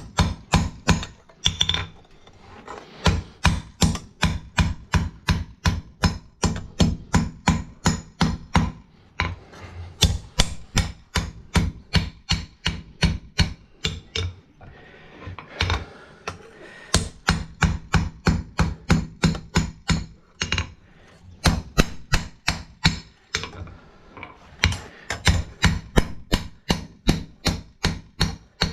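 Blacksmith's hand hammer forging steel on an anvil, about three blows a second, in runs broken by a few short pauses.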